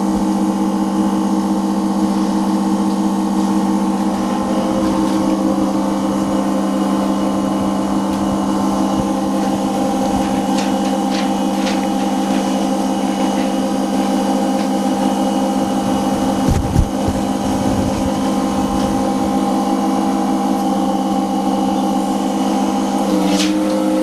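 OCA film laminating machine running, its built-in pump giving a steady, even hum. A few light clicks come in the middle, a brief knock follows about two-thirds of the way through, and the hum shifts slightly in pitch near the end.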